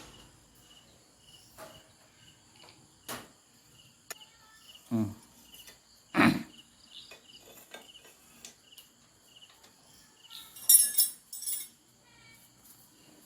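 Crickets chirping steadily, with scattered clanks and knocks of metal tools and parts while a motorcycle is being worked on, the loudest about six seconds in, and a brief metallic jangle near the end.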